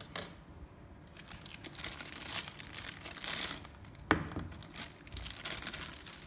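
Clear plastic packaging bag crinkling as it is handled, in irregular crackly bursts, with one sharp click about four seconds in.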